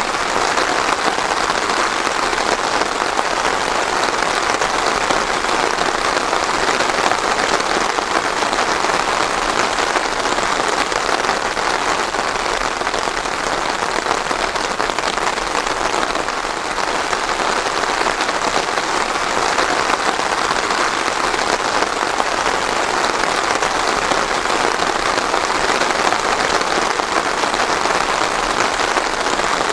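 Steady heavy rain falling on a surface, an even dense patter without thunder.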